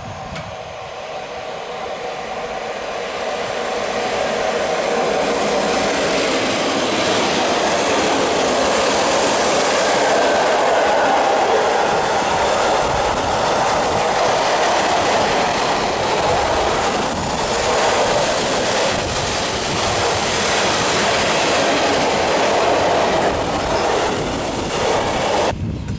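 An electric-hauled freight train of flat wagons loaded with containers rolling past, its wheels rumbling and clattering on the track. The sound swells over the first few seconds, stays loud and steady, then cuts off abruptly just before the end.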